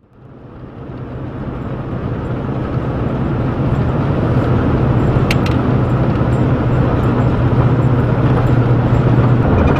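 Steady low engine drone and road noise from inside the cab of an old Chevrolet driving on a paved road. The sound fades in over the first couple of seconds.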